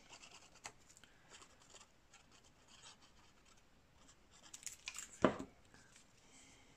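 Faint rustling and scratchy rubbing of paper as glue is spread from a bottle's applicator tip across a torn scrap of old paper. A few louder handling sounds come about five seconds in, the loudest a short knock.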